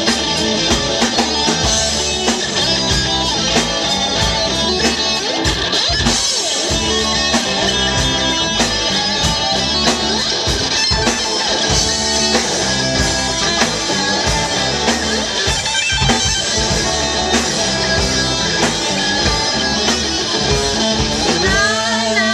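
Live rock band playing an instrumental stretch: distorted electric guitars over a drum kit with steady beats, amplified through the stage PA. A female singer's voice comes in near the end.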